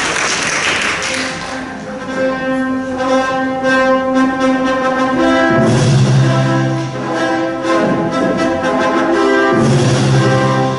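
Applause fading out over the first second or so, then orchestral music with sustained string chords; deep low notes come in about halfway through.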